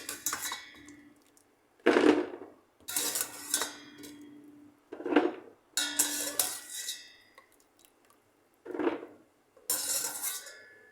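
A metal utensil clanking against a cooking pot in about seven separate knocks and scrapes, some ringing briefly, as boiled green pine cones are lifted out of the pot.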